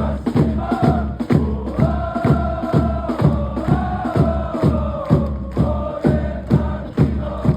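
A crowd of football supporters chanting in unison to a steady bass drum beat, about two beats a second.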